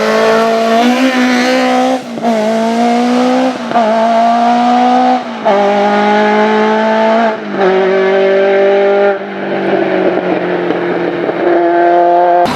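Rally car engine accelerating hard up through the gears: the pitch climbs in each gear and drops back at each of about five quick gear changes, then runs rougher before settling on a steadier note near the end.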